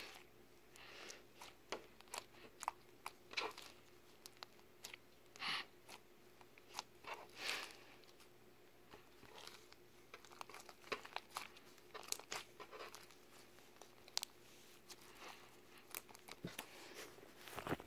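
Hands squeezing and stretching thick white slime, making faint, irregular sticky clicks and crackles as it folds and pulls apart.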